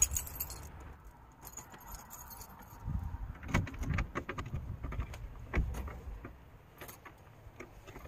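A bunch of keys jangling for about the first second, then sharp metallic clicks and scrapes, with a few dull knocks, as a key is worked into a door lock.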